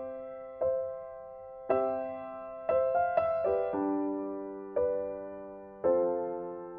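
Background music: soft electric-piano chords, struck about once a second and left to ring and fade.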